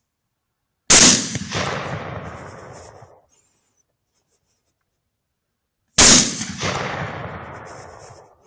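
Two rifle shots about five seconds apart, each a sharp crack followed by an echo that rolls away over about two seconds.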